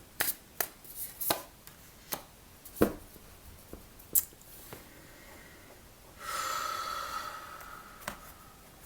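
Tarot cards being shuffled and handled: a run of sharp card snaps and taps, then, about six seconds in, a louder rustling burst lasting about two seconds.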